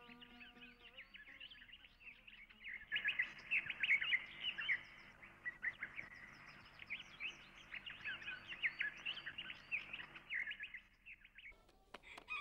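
Many small birds chirping in a busy chorus of short, quick notes, thickest from about three seconds in. The last held chord of plucked-string music fades out about a second in.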